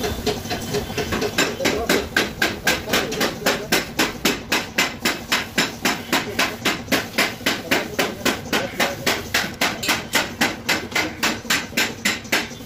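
Rapid, evenly spaced hammer blows, about three or four a second, starting about a second and a half in and keeping an even rhythm.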